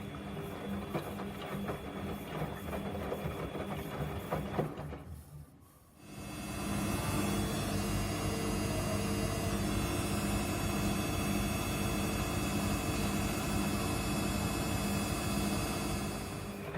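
Samsung washing machine's drum motor running with a steady hum and whine. It stops for about a second, five seconds in, then starts again and runs louder and steady.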